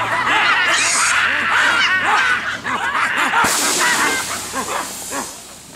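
Baboons screaming in distress and alarm at a leopard attacking one of the troop, many shrill rising-and-falling calls overlapping. The calls thin out and fade toward the end.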